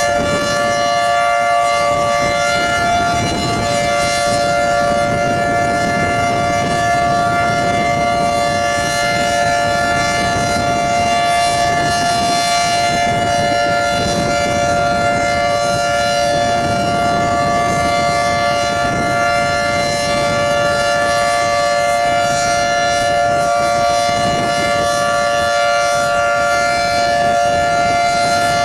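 Federal Signal 2T22 dual-tone tornado siren sounding a steady tone: two loud pitches held together, a minor third apart, with no rise or fall.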